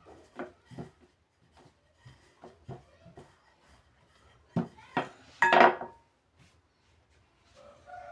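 Kitchen utensils being handled: a series of light, irregular knocks on a wooden surface, then a louder clatter with a brief metallic ring about five and a half seconds in, like a pan or metal bowl being set down.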